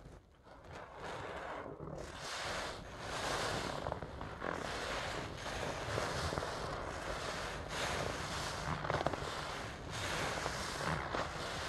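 Yellow foam sponge soaked in thick soapy lather being squeezed and worked by gloved hands, giving wet squishing and crackling of suds in repeated surges. It is quieter for about the first second, then the squelching picks up.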